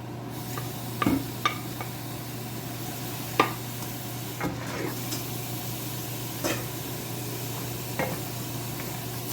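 Egg noodles frying in a pan, sizzling steadily, while chicken, shrimp and red pepper are stirred in, with about six sharp knocks of a utensil against the pan, the loudest about three and a half seconds in.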